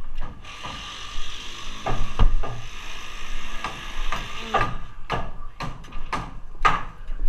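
Footsteps knocking on a plywood subfloor with a bundle of thin steel strips clattering in hand, the knocks coming about every half second in the second half. A steady hiss runs under the first few seconds.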